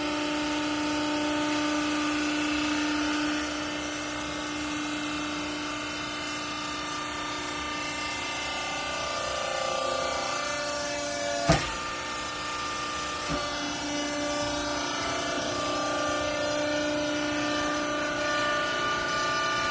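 Hydraulic pump unit of a vertical used-clothing baling press running with a steady hum and whine, its pitch shifting a few times. A sharp clank about halfway through and a lighter one shortly after.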